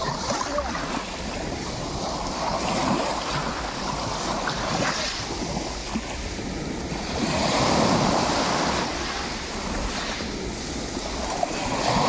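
Small sea waves breaking and washing up a pebble beach, the rush of water over the stones swelling every few seconds, loudest about two-thirds of the way through. A steady low rumble of wind on the microphone underneath.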